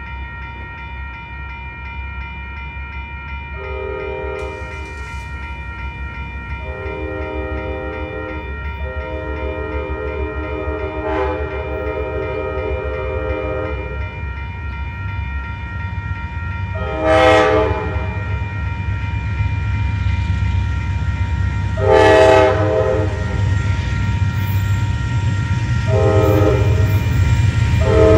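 Horn of an approaching Amtrak Coast Starlight, led by P42DC diesel locomotives, sounding a series of about seven blasts, the longest about four seconds. Under the horn, the rumble of the oncoming train grows steadily louder.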